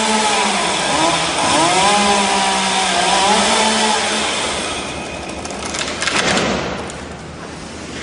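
Chainsaw running, its pitch dipping and rising as it is revved for about four seconds. Then the engine tone gives way to a rough rushing noise with a few sharp cracks.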